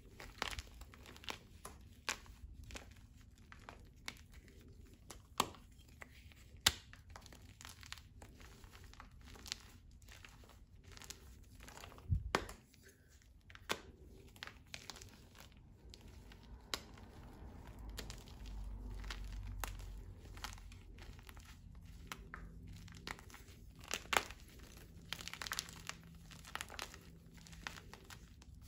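Hands crumbling and crushing blocks of gym chalk over a bowl of loose powder: dry, powdery crunching and crumbling, broken by sharp snaps at irregular intervals as pieces of block break apart.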